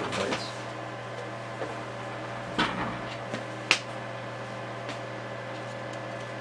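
A steady electrical hum with a few short clicks and knocks from handling things on a workbench. The sharpest click comes a little before the last third.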